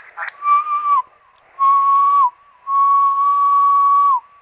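A steady whistle-like tone heard through a ham radio receiver, sounding three times with short gaps, the last one longest. Each tone drops slightly in pitch just as it cuts off.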